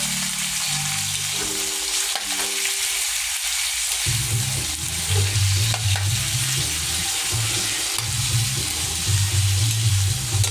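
Pork soft bones, onion and garlic sizzling in hot oil in a wok, stirred with a metal spatula that clicks and scrapes against the pan.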